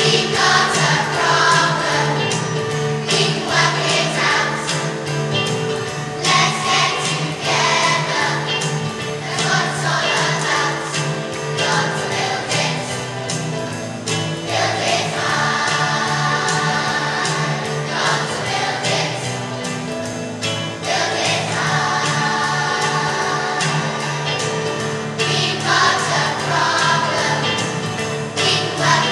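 A large choir of children and women singing a song in unison, with steady instrumental accompaniment beneath the voices.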